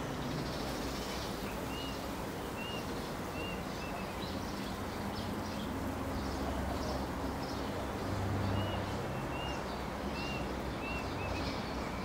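Steady outdoor background noise with a bird calling: two runs of short, clear whistled notes, a bit under one a second, the first a couple of seconds in and the second about two-thirds of the way through.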